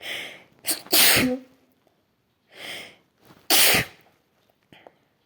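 A person sneezing twice in a sneezing fit, each sneeze preceded by a breathy drawn-in breath; the two loud sneezes come about a second in and about three and a half seconds in.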